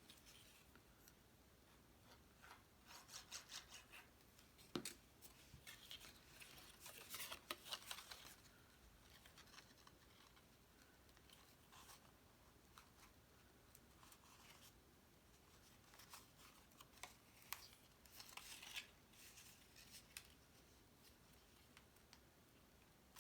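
Faint, intermittent rustling and small clicks of cardstock card pieces being handled, with a sharper tap about five seconds in.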